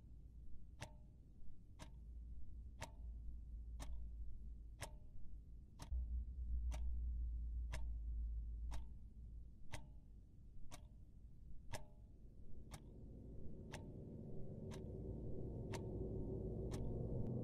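A clock ticking steadily, about once a second, in a quiet room. A low hum swells in under it in the second half.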